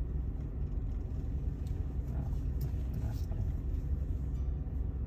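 Steady low rumble of a Mitsubishi car's engine and tyres, heard from inside the cabin as it moves slowly.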